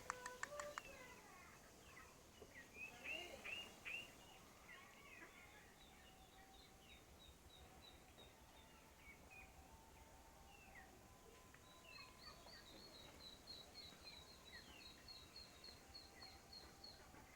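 Birds chirping faintly: scattered short calls, a louder cluster of calls about three seconds in, and two runs of quick, evenly repeated high notes, the second lasting the last five seconds.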